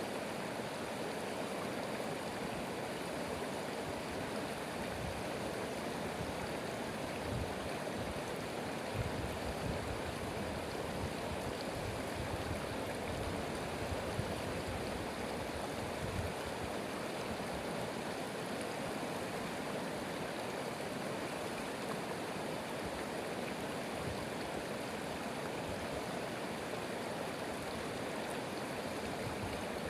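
Stream of running water: a steady rush with small irregular surges low down.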